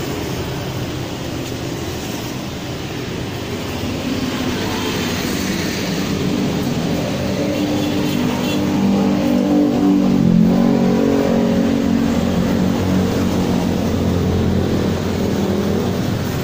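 Car engine running, growing louder towards the middle and then easing off a little.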